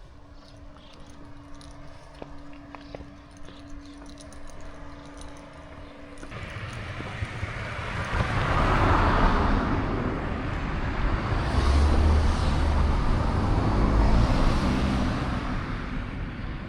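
A train on the Iida Line passes close by over an unguarded level crossing, with no crossing bell. About six seconds in, a loud rumble of wheels and running gear comes in suddenly, stays at its peak for several seconds, then eases off. Before it there is only a faint steady hum and faint high chirps.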